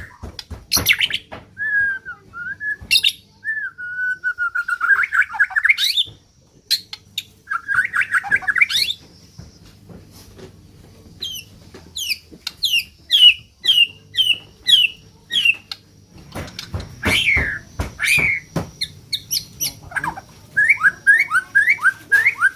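White-rumped shama (murai batu) singing a varied song that its keeper calls strange for this unkempt bird. It gives rising whistled phrases, then a quick run of short falling notes, then clusters of sharp clicks and short upturned notes.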